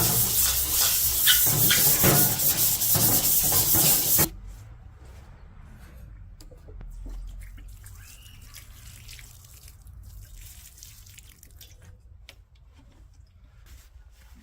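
Water spraying hard onto a stainless steel plate during cleaning, cutting off suddenly about four seconds in. After that come faint drips, rubbing and small clicks.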